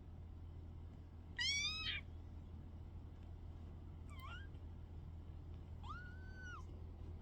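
Young kitten mewing three times in short, high-pitched calls: the first, about a second and a half in, is the loudest, then a faint one near the middle and a rising-and-falling one near the end.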